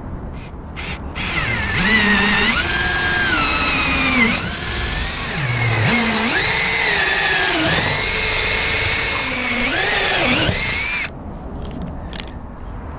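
Power drill with a large twist bit boring through a 3/4-inch StarBoard (HDPE plastic) spacer. The motor's whine dips in pitch and recovers several times under load, then stops about two seconds before the end.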